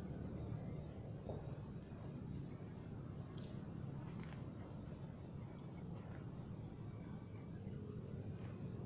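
A bird calling a short, high, upward-sweeping chirp four times, about two seconds apart, over a steady low rumble of outdoor background noise.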